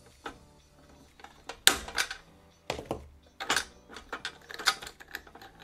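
Irregular sharp clicks and knocks, about ten in a few seconds, of a plastic tool and fingers prying at a stuck air-hose fitting on an airbrush compressor.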